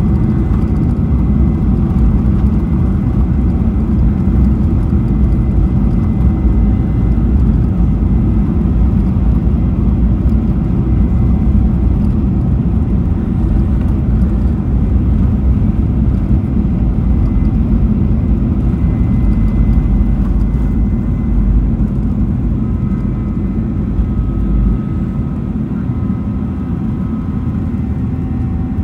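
Boeing 737-800 cabin noise: a loud, steady low rumble of the CFM56 jet engines and airflow, with faint steady whine tones above it. It eases slightly near the end.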